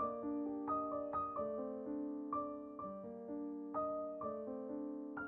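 Soft, slow background piano music, gentle notes struck about every half second and left to ring.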